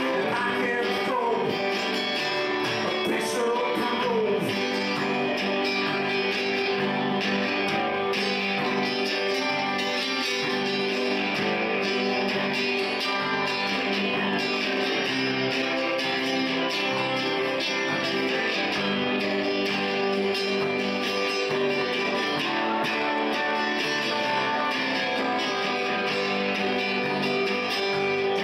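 Live country band music: electric guitar, acoustic guitar and electric bass playing a steady, even beat.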